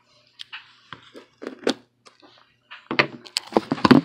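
Cardboard box flaps scraping and a plush toy rubbing against the cardboard as it is handled and pulled out: a run of rustles and soft scrapes, with a few sharper, louder knocks near the end.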